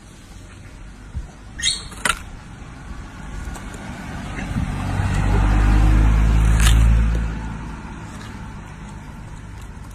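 A motor vehicle passing: a low engine rumble that swells, peaks and fades over several seconds, after a couple of sharp clicks about two seconds in.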